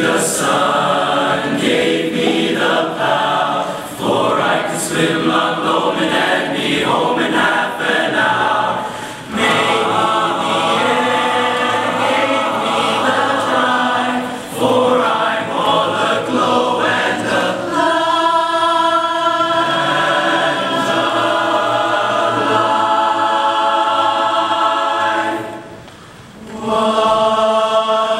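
Boys' barbershop chorus singing a cappella in close harmony: moving chords first, then long held chords in the second half, broken by a short pause near the end.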